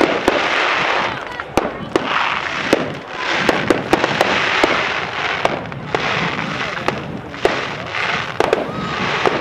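Fireworks display going off: a rapid string of sharp bangs and cracks over a continuous crackling hiss.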